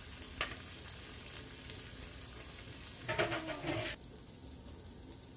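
Egg-soaked bread frying in melted butter in a stainless steel pan: a steady crackling sizzle. A single click comes under half a second in, and a short louder stretch about three seconds in, after which the sizzle is quieter.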